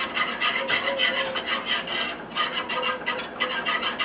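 Wire whisk scraping rapidly and rhythmically against a saucepan, several strokes a second, working a milk, butter and flour sauce as it thickens.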